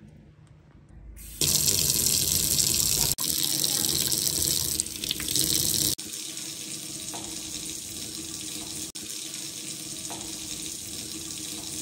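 Kitchen tap turned on about a second in, water streaming steadily from the mixer faucet into a stainless steel sink. The flow sound is louder at first and drops a step partway through.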